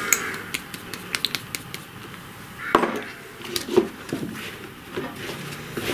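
Hands working a warm, freshly cooked modelling-clay dough of PVA glue, flour and gypsum filler in a plastic bowl: a quick run of light clicks and taps in the first second or so as a glass dish is tipped against the bowl, then scattered soft rustles and knocks as the dough is kneaded.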